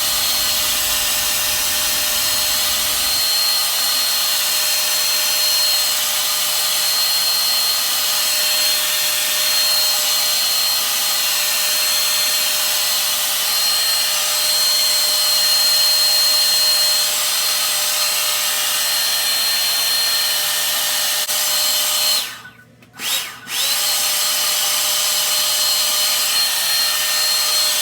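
Handheld hair dryer running steadily, blowing on freshly sprayed Got2b glue to dry it: a loud rush of air with a steady high motor whine. It cuts out briefly twice about 22 seconds in and comes straight back on.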